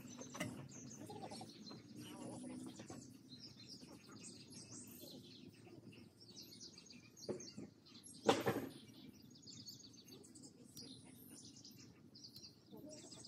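Songbirds chirping and singing, with a single sharp knock about eight seconds in.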